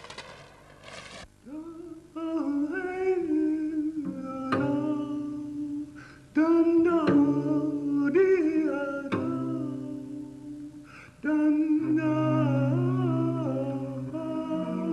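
Music: a wordless voice humming a melody in separate phrases, with low sustained notes beneath some of them. A short rushing noise comes just at the start.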